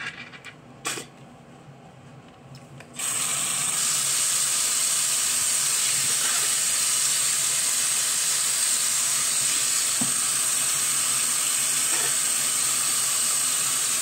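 A few faint knocks, then about three seconds in a bathroom tap is turned on and runs steadily into the sink.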